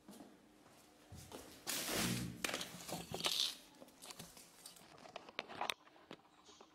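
Scuffling and rustling with scattered knocks and clicks, as a handheld camera is jostled in the dark, with a louder burst of rustling about two seconds in.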